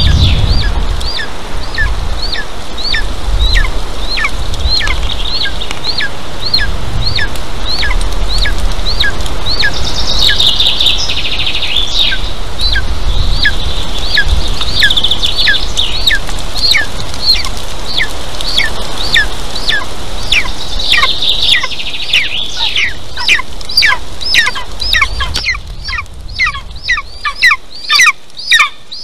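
Golden eagle calling: a long series of high, down-slurred chirps, about two to three a second, coming faster near the end. Wind rumbles on the microphone and drops away near the end.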